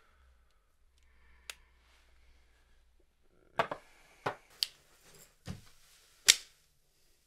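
A quick run of five sharp smacks over about three seconds, unevenly spaced, the last the loudest, after a single faint click and a low hum.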